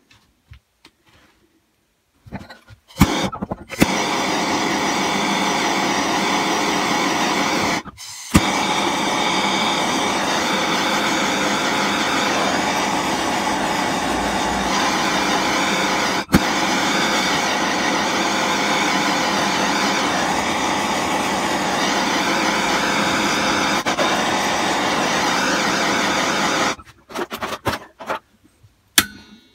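Handheld gas torch (gas gun) burning steadily as it heats the alloy engine casing around a Lambretta's silent block engine-mount bush, so that the bush will pull out. It comes on after a few clicks about 4 s in, cuts out briefly near 8 s, and stops about 27 s in.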